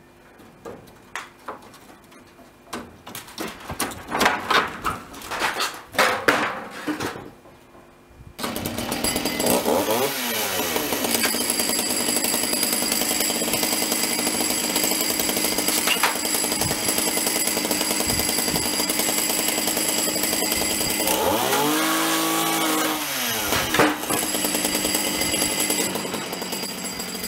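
Irregular knocks and bangs for the first several seconds, then a chainsaw starts up and runs steadily, revving once early on and briefly dropping in pitch and recovering near the end as it works on the roof eave.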